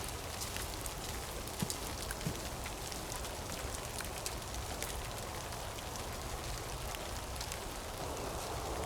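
Steady rain falling, with many small sharp ticks of drops scattered through it.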